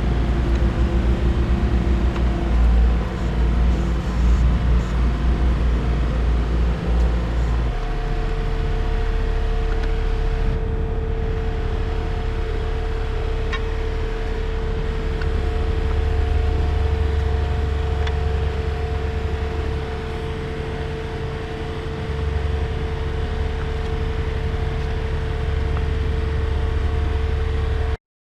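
Takeuchi TB145 mini excavator's diesel engine running steadily. About eight seconds in the engine note changes and a steady whine joins it for the rest of the stretch.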